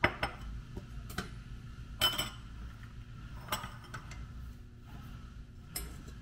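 Kitchenware clinking: about six sharp clinks of utensils against dishes, spaced irregularly, the loudest at the start and about two seconds in, over a steady low hum.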